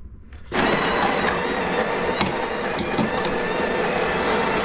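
Electric coffee grinder grinding a dose of espresso beans. It starts about half a second in and then runs steadily, a dense mechanical whir with a few sharp ticks from the beans.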